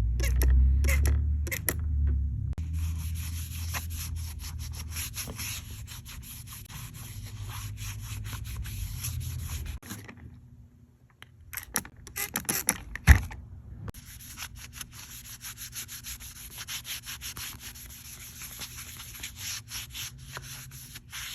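Scrubbing and rubbing on a phone case to clean grime and paint off it, in quick repeated strokes. It pauses briefly about halfway, a sharp knock follows, then the scrubbing resumes.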